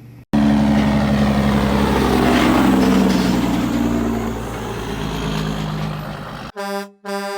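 Heavy truck engine running loud, its pitch rising and falling, followed near the end by two short horn honks.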